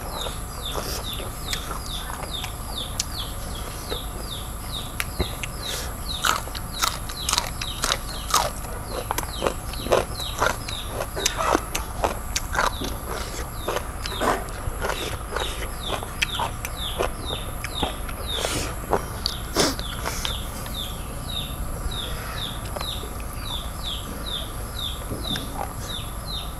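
Close-up eating sounds: a person sucking babylon snails out of their shells and chewing, with sharp clicks and smacks that come thickest in the middle. A quick chirp repeats about twice a second in the background.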